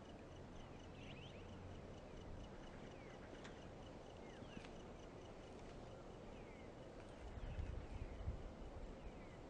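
Faint outdoor background with birds chirping now and then over a faint high tone pulsing a few times a second. About seven seconds in, a low, uneven rumble rises and becomes the loudest sound.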